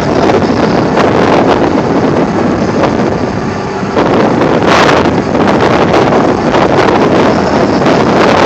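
Helicopter running close by, with heavy wind buffeting the microphone; the noise dips briefly about three and a half seconds in, then comes back.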